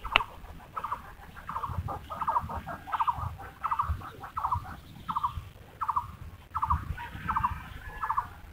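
An animal's short pulsed call repeated about twice a second at an even pitch, over low rustling and bumping from hands working in the grass.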